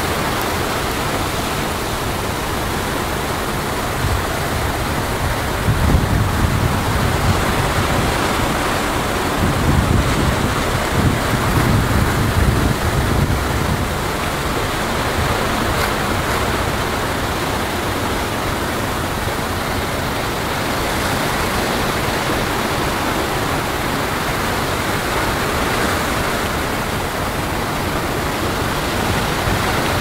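Steady rush of churning Atlantic sea water and foaming waves, with louder low surges between about six and thirteen seconds in.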